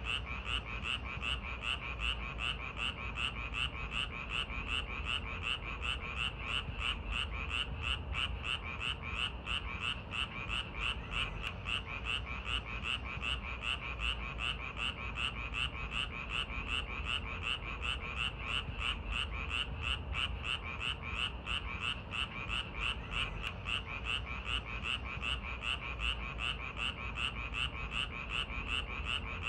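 Frogs calling in a steady chorus, an unbroken run of croaks at about two a second.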